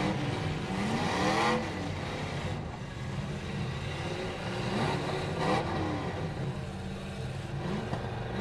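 Demolition derby cars' engines revving, several at once, their pitch gliding up and down, with harder revs about a second and a half in and again around five and a half seconds.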